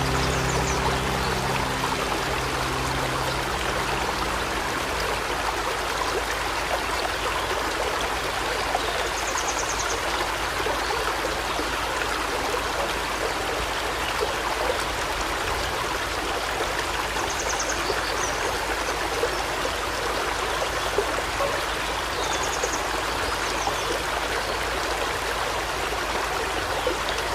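Aquarium water trickling and splashing steadily. The last notes of music fade out over the first few seconds, and a few faint short high chirps come and go.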